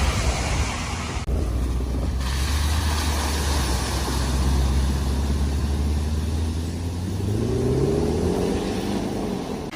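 A car engine running steadily at low revs, then revving up with a rising pitch about seven seconds in as the car accelerates.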